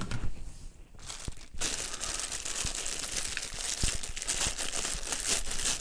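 Clear plastic packaging crinkling as it is handled and opened. It starts about a second and a half in and goes on as a continuous crackle.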